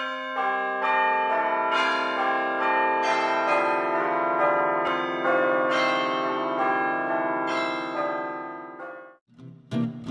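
A peal of bells: overlapping struck bell tones, a new strike every half second or so, each ringing on, fading out about nine seconds in. An acoustic guitar starts strumming near the end.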